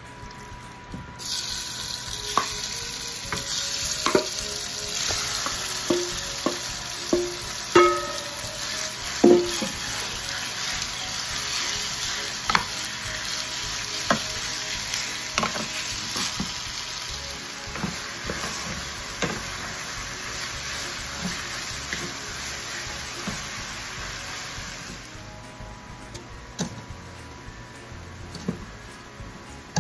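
Raw chicken thigh strips sizzling in hot oil in a ceramic-coated pan. The sizzle starts suddenly about a second in and stays loud and steady. It is broken by sharp knocks and scrapes of a wooden spatula against the pan as the meat is stirred. Near the end the sizzle drops to a quieter hiss.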